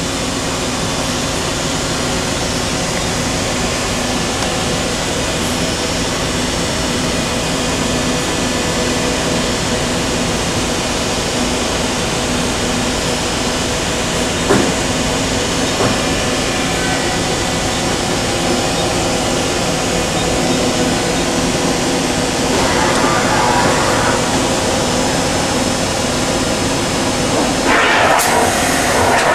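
Okuma MA-50HB CNC horizontal machining center running while its axes traverse: a steady mechanical hum, with a single click about halfway through and two louder rushing swells near the end.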